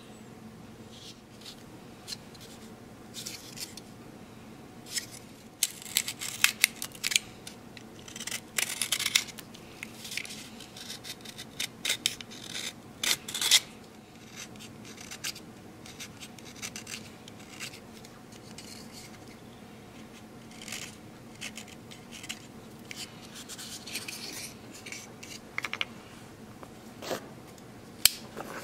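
Hand carving of a small wooden boat: a blade shaving the wood in short, scratchy strokes that come in quick runs, thickest in the first half and sparser later.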